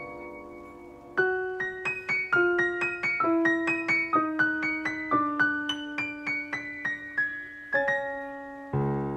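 Slow solo piano background music: a held note fading out, then a gentle run of single notes from about a second in, settling on a held chord near the end.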